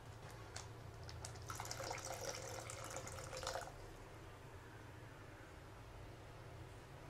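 Half a cup of water poured into a kadai of thick dates-and-banana payasam mixture: a soft pour lasting about two seconds, starting about a second and a half in.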